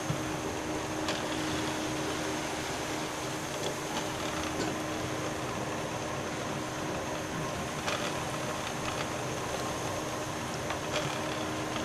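Pakoras deep-frying in hot oil in a kadai: a steady sizzle with a few faint pops, over a steady low hum.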